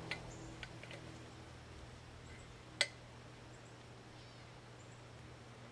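Quiet, with a few faint clicks and one sharp click nearly three seconds in, from a metal antenna pole being tightened into a Christmas tree stand.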